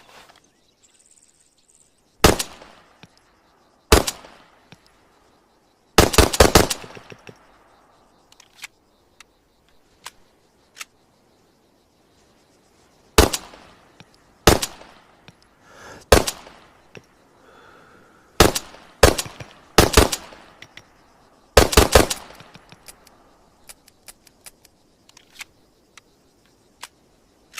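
Makarov PM 9×18 mm semi-automatic pistol firing, each shot a sharp crack with a short echoing tail. It fires single shots a second or more apart, with two quick strings of several shots, one about six seconds in and one near twenty seconds. Faint light clicks fall between the shots.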